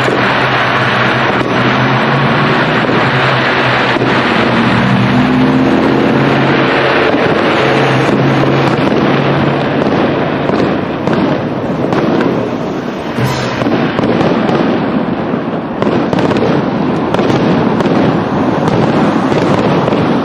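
Aerial fireworks display: a dense, continuous barrage of shell bursts, rapid bangs and crackle. It thins out for a few seconds in the middle, then builds again.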